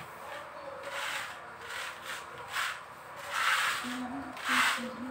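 Rough rubbing strokes on a hard floor, about one a second, from cleaning by hand.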